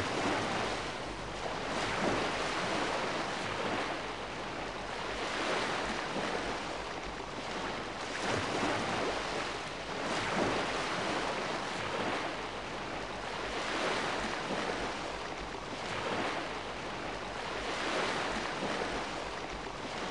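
Surf washing onto a sandy beach, a steady rush that rises and falls every few seconds as the waves come in.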